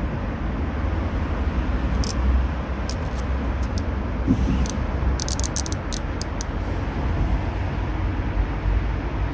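Steady low background rumble, with a run of small, sharp clicks about two to six seconds in.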